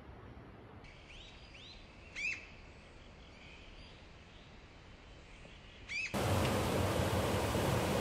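A bird gives several short, arching chirps over a faint forest hush, two of them louder, about two seconds in and near six seconds. About six seconds in, the sound cuts abruptly to the loud, steady rush of a mountain stream or waterfall.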